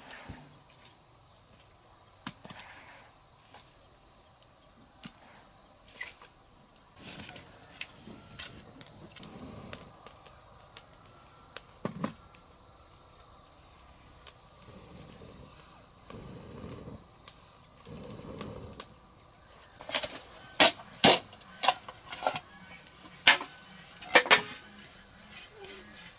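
Steady chorus of insects such as crickets chirring in the background, with scattered faint clicks. A quick run of sharp, loud knocks comes near the end.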